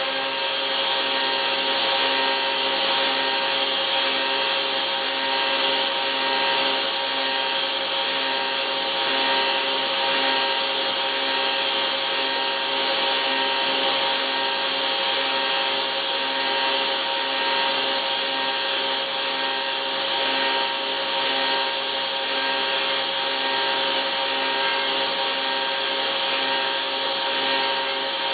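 CNC milling machine cutting a combustion chamber into an aluminium Nissan SR20VE cylinder head under a stream of coolant: a steady whine with several held tones over a continuous hiss of cutting and coolant.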